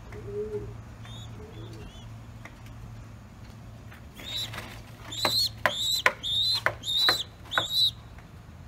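A pigeon coos once near the start. Then, from about halfway through, a buchón pouter pigeon squab gives a run of about six short, high, squeaky calls as a hand touches it.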